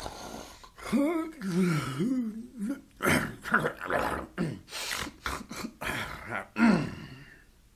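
Cartoon wolf snoring in its sleep: a drawn-out wavering groan about a second in, then a run of short rough snoring breaths.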